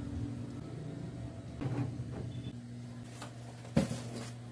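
Steady low hum with light handling knocks and rustles, and a sharp knock near the end as a clear plastic bag of clothes is handled on a bed.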